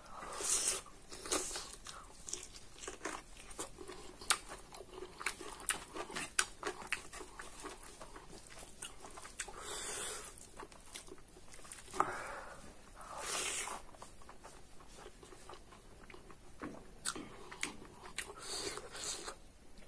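Close-miked eating of spicy pork belly and rice by hand: biting, crunching and wet chewing with many short smacks and clicks, and a few short hisses.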